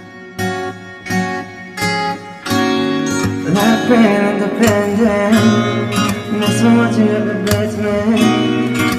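A pop song plays: single plucked guitar notes at first, then the full backing comes in about two and a half seconds in, with a sung voice joining soon after.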